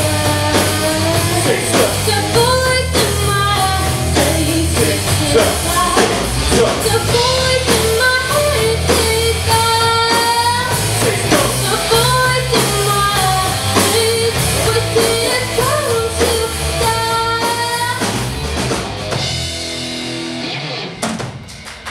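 Rock band playing live with drum kit, guitars and a gliding sung melody line. The song thins out and stops near the end.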